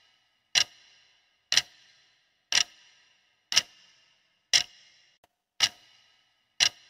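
Countdown-timer ticking sound effect: a clock-like tick once a second, seven ticks in all, each with a short ringing tail.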